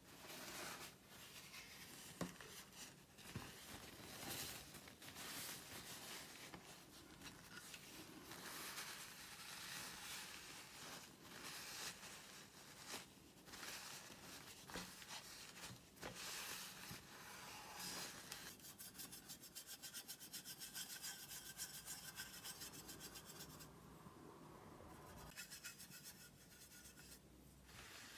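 Paper tissue rubbing across the painted tin lid of an old Reeves watercolour box, a soft scratchy rasp in repeated wiping strokes. For several seconds past the middle the strokes become fast and steady, like brisk scrubbing, then ease off.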